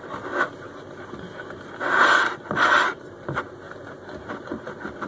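Batter being stirred by hand in a bowl with a fork or whisk, the utensil scraping and clicking against the bowl to beat out flour lumps. Two louder scrapes come close together about two seconds in.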